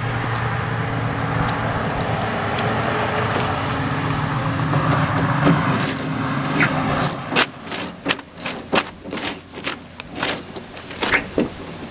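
Hand work on a truck door's inner panel: a steady rush with a low hum for roughly the first seven seconds, then a run of irregular sharp clicks and light metallic rattles as parts and tools are handled.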